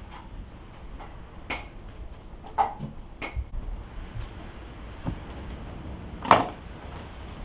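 Short knocks and clinks of a wooden cutting board and knife being handled and set down on a wooden table, half a dozen separate hits with the loudest about six seconds in.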